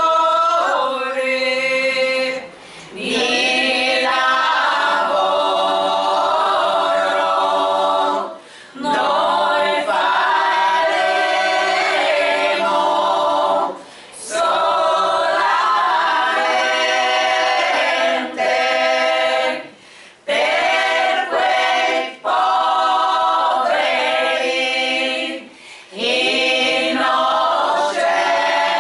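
Small women's vocal group singing a cappella in several-part harmony, in phrases of a few seconds separated by brief breaths.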